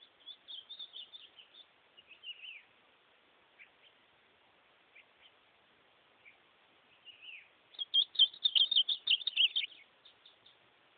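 Ultramarine grosbeak (azulão) singing: a short warbled phrase at the start, a few single notes, then a longer, louder phrase about eight seconds in.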